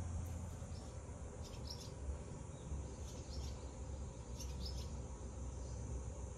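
Outdoor ambience: short, high chirping calls come in three brief clusters about a second and a half apart, over a steady low rumble.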